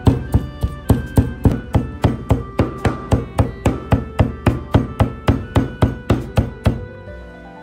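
Steel cleaver chopping minced pork and fish paste on a wooden cutting board, a steady run of strikes about four to five a second. The chopping stops near the end.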